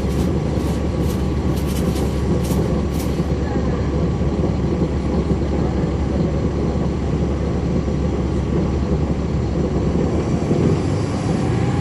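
Caterpillar C13 ACERT inline-six diesel of a NABI 40-foot transit bus, heard from the floor at the back of the bus, running steadily with a dense low drone. A few sharp ticks come in the first three seconds.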